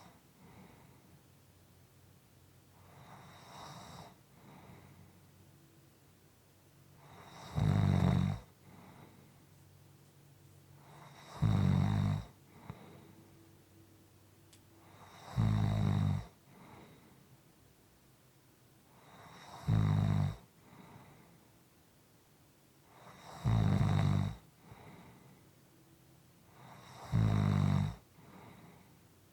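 A person snoring in a slow, steady rhythm: a loud, low snore about every four seconds, six times, with soft breaths between them. The first several seconds hold only quieter breathing.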